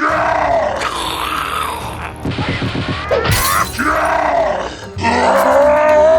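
Background music with repeated rising-and-falling groaning calls, and a crash a little over three seconds in.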